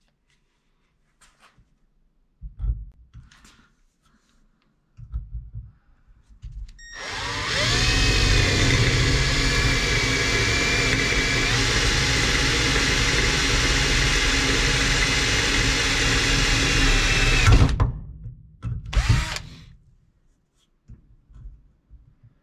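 Milwaukee cordless drill drilling a seat-mount bolt hole through a pickup cab floor. It runs steadily for about ten seconds, its whine stepping up in pitch partway through, then gives one short second burst. A few handling knocks come before it.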